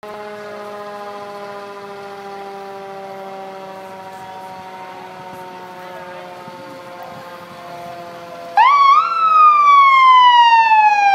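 Emergency vehicle sirens. A siren's several tones wind slowly down in pitch. About eight and a half seconds in, a much louder siren swoops up twice and then begins a long, slow fall.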